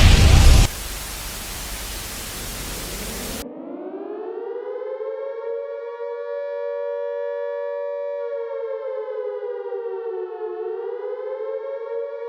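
Civil defense siren winding up from a low pitch to a steady two-tone wail, with a brief dip and recovery in pitch near the end. Before it, a loud music hit cuts to about three seconds of static hiss.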